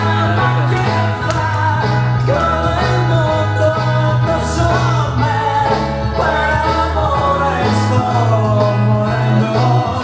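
Playback of a 1960s Italian pop song: a singing voice over a band with a steady, repeating bass line.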